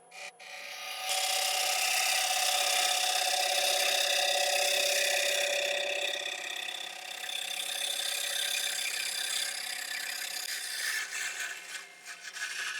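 Gouge cutting the inside of a Monterey cypress bowl spinning on a wood lathe: a steady scraping hiss with a ringing tone. It starts about a second in and tapers off near the end, over the faint hum of the lathe.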